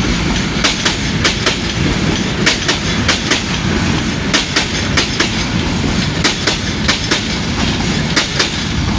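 Intercity passenger coaches of a Bangladesh Railway train rolling past at close range: a steady low rumble, with the wheels clacking over the rail joints in quick pairs and clusters as each bogie crosses.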